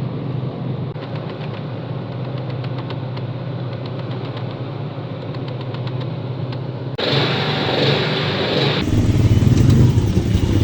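A motor engine runs with a steady hum. About seven seconds in the sound cuts abruptly to a different, louder engine and wind rumble.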